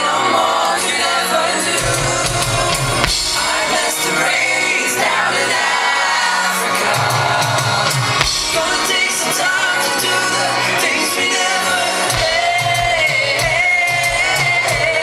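Live pop music over a concert PA: a male singer's vocal over a steady bass beat, with shouts from the crowd.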